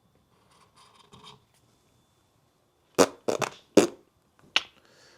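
A quick run of about four sharp knocks, three close together about three seconds in and a last one near the end, after some faint rustling.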